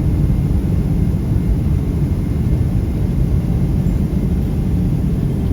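Jet airliner cabin noise: a loud, steady low rumble of the engines and rushing air.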